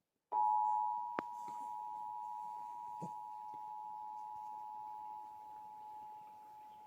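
Emergency Alert System attention signal: the steady two-tone alert tone (853 Hz and 960 Hz sounded together), starting just after a brief silence and slowly getting quieter. A sharp click cuts across it about a second in.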